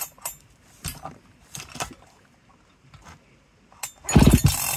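Recoil starter rope of a Husqvarna 385XP chainsaw pulled hard about four seconds in, spinning the engine over with a short rasping whir and no firing, as the ignition is checked for spark. Faint clicks and rattles of the starter and handle come before it.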